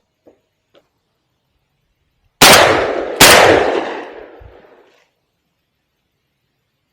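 Two shotgun shots fired less than a second apart, each followed by an echo that dies away over a couple of seconds.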